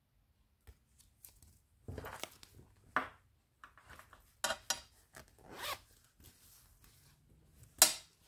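A fabric handbag being handled and searched through: a series of irregular rustles, scrapes and zipper-like rasps, the loudest one near the end.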